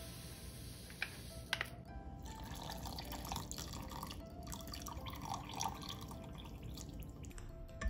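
Hot water poured in a thin stream into a glass bowl of jelly powder, trickling and splashing, over background music. Two sharp clicks come about a second in, before the pouring starts.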